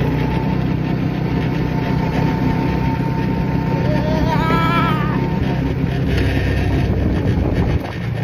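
Wind rushing over the microphone in an open-top car on the move, over a steady low rumble of road and engine noise. A brief voice sound comes about four to five seconds in.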